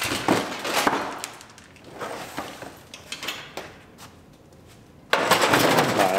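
Plastic front bumper cover clattering and scraping as it is pulled free of the car and carried off, with scattered knocks, then a sudden louder burst of scraping and rattling about five seconds in.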